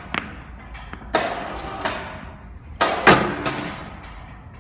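Sharp metallic clanks from the weighing hand pallet truck and its load, each ringing briefly. A couple come about a second in and a cluster near three seconds in, as the 500 kg calibration weight settles onto the scale forks and the reading climbs toward 500 kg.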